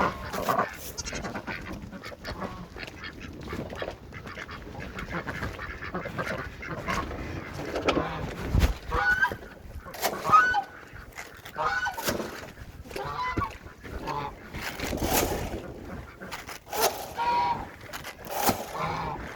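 Farm fowl calling repeatedly with short honking calls, over scattered knocks and scuffs.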